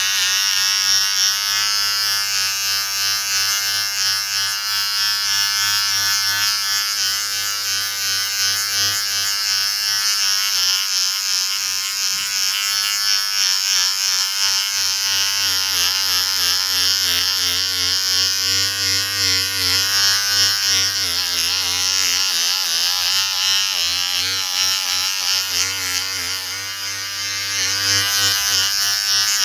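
Electric shaver buzzing continuously. Its pitch wavers through the middle of the stretch, as under changing load, and steadies again near the end.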